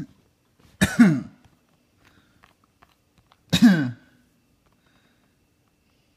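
A person coughing twice, about two and a half seconds apart; each cough is short and loud and falls in pitch.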